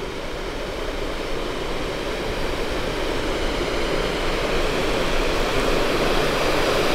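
Rushing water of a creek tumbling over falls, a steady rush that grows slowly louder.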